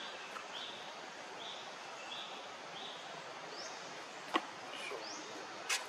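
Forest ambience: a steady hiss with a bird's short high call notes repeating about once or twice a second, the later notes pitched higher. Two sharp clicks, the loudest sounds, come near the end.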